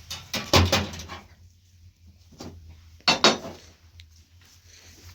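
Hard objects knocking and clattering in two bursts, one just after the start and a second about three seconds in, with a lighter knock between.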